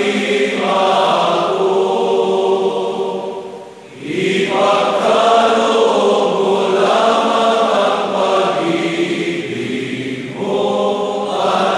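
A choir singing a slow chant in long sustained phrases, with a short pause about four seconds in and a brief dip near ten seconds.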